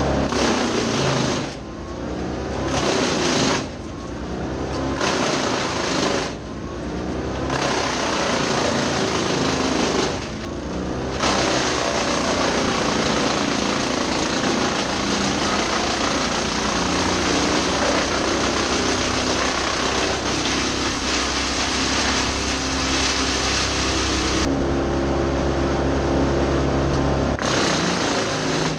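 Tractor-powered PTO wood chipper (Badger 8 PTOXL) chipping eucalyptus: the engine and chipper run steadily underneath while dense chipping noise comes in long stretches, with several short lulls in the first ten seconds and another a few seconds before the end.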